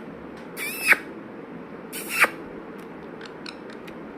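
Indian ringneck parrot giving two short calls about a second apart, the first rising and then falling in pitch, followed by a few faint clicks.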